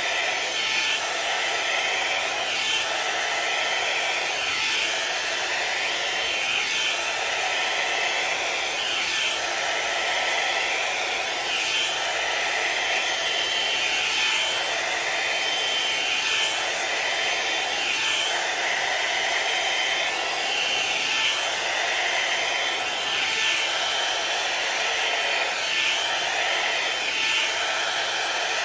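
Hot-air round brush dryer blowing steadily, with a faint rise and fall in its rush of air every couple of seconds as it is drawn through the hair.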